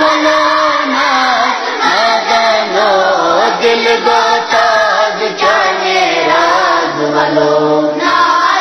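Group of children singing a Kashmiri naat together in unison, drawing the melody out in long, wavering sung lines.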